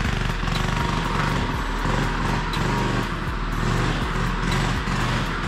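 Small 79cc OHV four-stroke engine on a Kitty Cat snowmobile running steadily as the sled pulls away, with background music over it.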